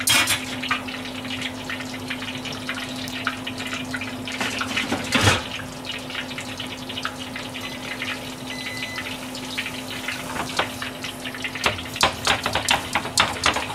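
Grilled salmon pieces simmering in sake and dashi soy sauce in a saucepan, the broth bubbling and crackling, more busily near the end, over a steady low hum.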